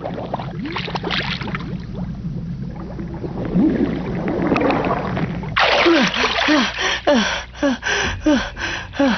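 Underwater bubbling with a low rumble, then a boy surfaces with a splash about five and a half seconds in and gasps for air in quick panting breaths, about three a second.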